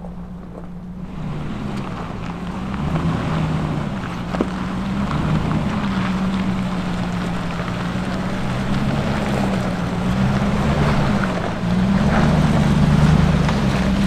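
A Lexus GX 460 and a Toyota 4Runner crawling over a rocky dirt trail: a low, wavering engine drone with tyres crunching on rock and gravel. It grows louder as they approach and is loudest near the end.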